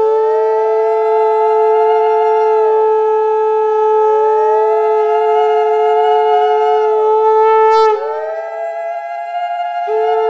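Two conch shells (shankha) blown together during aarti: one holds a steady note, dropping out for a breath about eight seconds in, while the other sounds in three blows of about three seconds, each bending up in pitch at the start and sagging at the end. A short click just before the first conch drops out.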